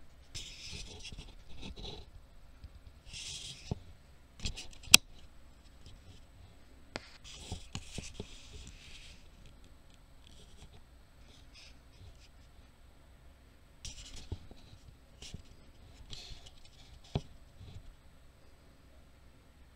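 Hands handling a ribbed pin tray and small padlock parts: short scratchy rubbing sounds, broken by a few sharp clicks, the loudest about five seconds in.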